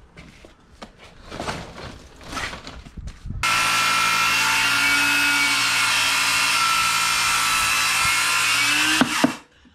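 A few light scrapes and knocks, then a power tool off-camera starts abruptly about three and a half seconds in, runs at a steady pitch for around six seconds, and cuts off suddenly.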